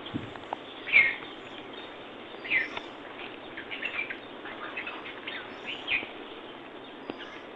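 Birds chirping in short, scattered calls, the loudest about a second in and again near the middle and toward the end, over a steady background hiss.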